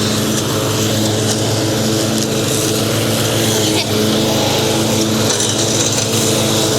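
Craftsman riding lawn mower's engine running steadily at a constant speed while mowing.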